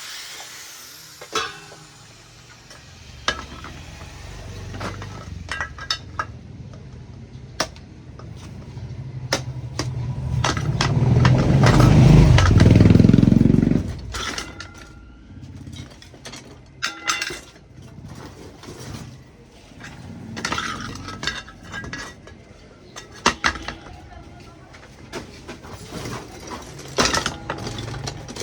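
Scattered sharp clinks and knocks, with a loud low rumble that builds about ten seconds in and cuts off suddenly a few seconds later.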